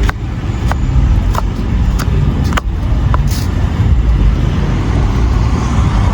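Steady low rumble of road traffic, with a run of sharp taps about every half second during the first three seconds.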